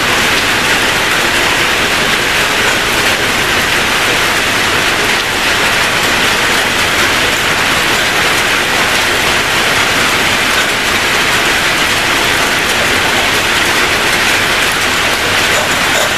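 A steady, even hiss like heavy rain, unchanged throughout.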